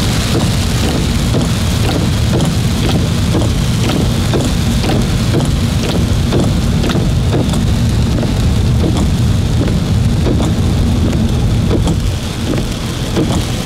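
Heavy rain falling, with a steady low rumble underneath and many close, separate drop hits.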